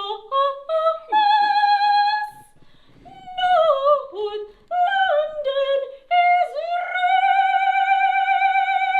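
A woman singing in an operatic style: a run of short notes that rise and fall, then one long high note held for over two seconds near the end.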